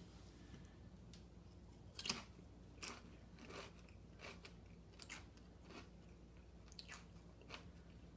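A person chewing a salsa-topped chip, with faint, scattered crunches.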